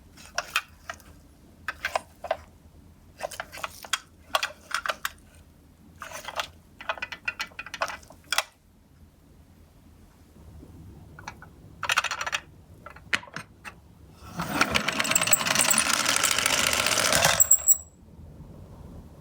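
Die-cast Tomica toy ambulances clattering on a cardboard slope: a run of short clicks and knocks over the first eight seconds, a few more about twelve seconds in, then a louder continuous rattle of about three and a half seconds that cuts off abruptly.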